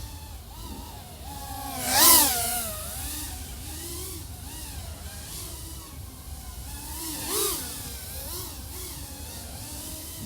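Motors and 3.5-inch propellers of an iFlight AOS 3.5 V5 FPV quadcopter (XING 1504 3100KV motors) in flight, heard through the DJI O3 air unit's onboard microphone: a whine that keeps rising and falling with the throttle. There are loud rushing bursts as the throttle is punched, about two seconds in and again later.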